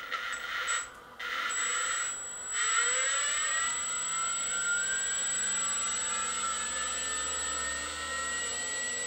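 Spinning-magnet rotor rig running under electric drive: a steady whir with a thin high tone and a low hum. Its tones shift over the first few seconds, then hold steady.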